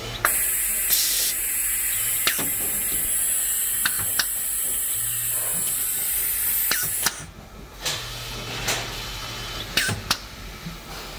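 Compressed air hissing steadily through the vacuum system of a pneumatic label-applicator arm, cutting off suddenly about seven seconds in. Sharp pneumatic clicks from the cylinders and valves come through it, along with a couple of short low motor hums.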